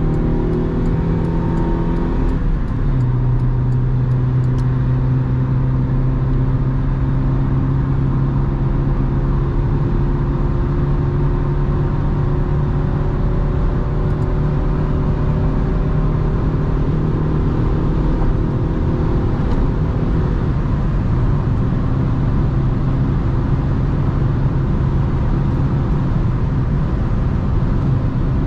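1997 Honda Civic's 1.4-litre four-cylinder petrol engine heard from inside the cabin. Its note drops in pitch about two to three seconds in as the driver shifts up on the five-speed manual, then it runs steadily at motorway speed over a constant rush of road and wind noise.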